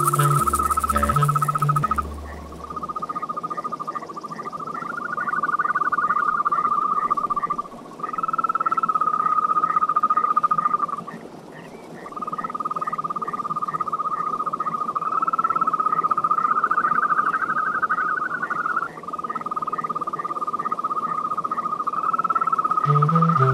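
Yosemite toads calling: long, high trills, one after another, each held for several seconds with short breaks between. A low bass clarinet line dies away in the first two seconds, and music comes back in near the end.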